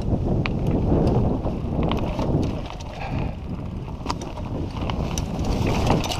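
Mountain bike riding fast over a dirt singletrack: wind rumbling on the microphone, tyres on dirt, and frequent sharp clicks and rattles from the bike over bumps. A louder knock near the end as the bike rolls over a fallen log.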